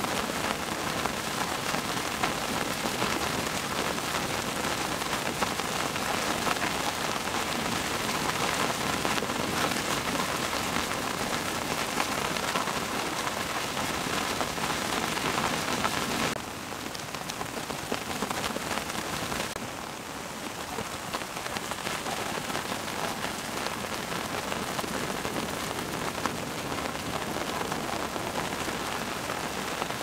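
Steady rain falling on a surface, a dense hiss dotted with sharp ticks of individual drops. About 16 seconds in it turns a little quieter and duller, and shifts again about 20 seconds in.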